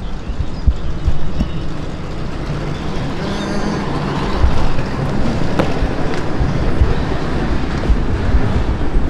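Roadside traffic noise: a steady low rumble of passing vehicles, with one sharp click about halfway through.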